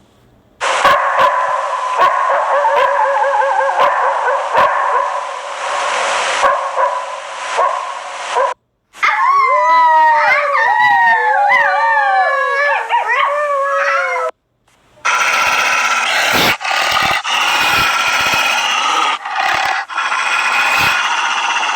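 A wolf pack howling and yipping in chorus, in three separate recordings cut one after another with brief silences between them. The first and last are dense, overlapping choruses. The middle one has a few clearer howls rising and falling in pitch.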